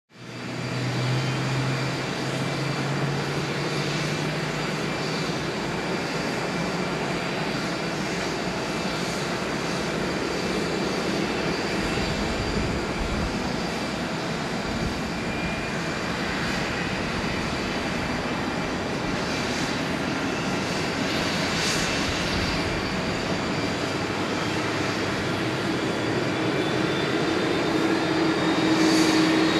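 Airbus A330-300 jet airliner under tow by a pushback tug: a steady jet whine and rush, with a higher whine slowly rising and the sound growing slightly louder near the end.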